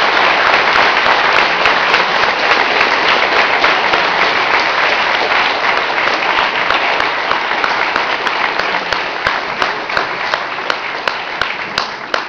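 Audience applauding: a dense, sustained round of clapping in a room that thins out and dies away near the end.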